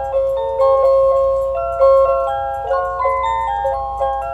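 Quartz Black Forest cuckoo clock playing its hourly melody after the cuckoo call: a bright, bell-like tune of short notes from its built-in speaker.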